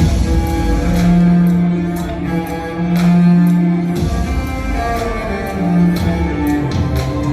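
Instrumental background music: long held low notes under sustained string-like tones, with light ticking percussion.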